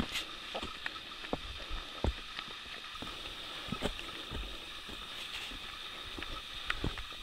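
Footsteps of a hiker walking on a dirt and rock forest trail: irregular thuds and scuffs, a few each second, over a steady faint hiss.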